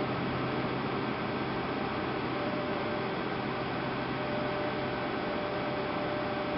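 Cabin noise of a Boeing 757-200 with its jet engines idling while the aircraft stands still: a steady hum with a few held whining tones over an even hiss.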